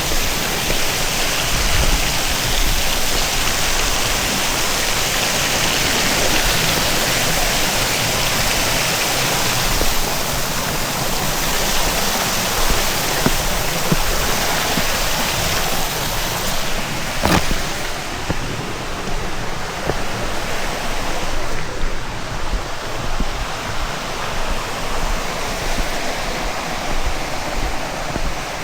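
Steady rush of flowing water, like a stream or small weir running close by. A single sharp click about two-thirds of the way through.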